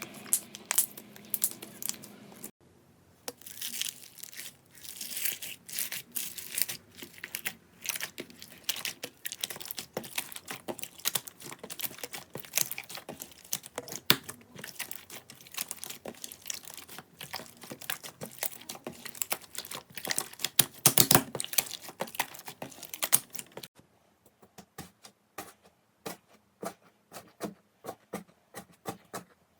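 Slime being squeezed, poked and stretched by hand, giving a rapid run of small crackling pops and sticky clicks. The sound changes abruptly twice, about two and a half seconds in and near the end, as one clip gives way to another.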